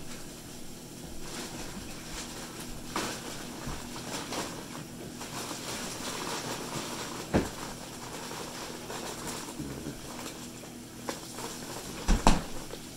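Kitchen sounds of people moving about and handling things: a low steady hum under scattered knocks and clatter, with a sharp knock about seven seconds in and the loudest, a quick double knock, near the end.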